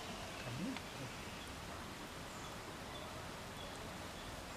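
Quiet rural outdoor background noise, an even hiss with no distinct event, and a faint short rising sound about half a second in.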